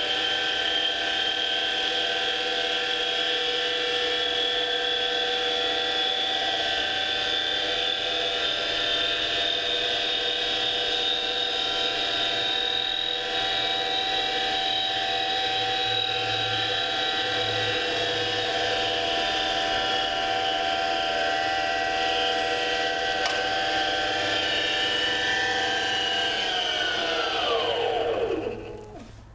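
7x16 Micro-Lux mini lathe's spindle motor running at speed during a finishing cut on wood stock, with a steady whine of many tones. Near the end it is switched off and the whine drops in pitch as the spindle winds down to a stop.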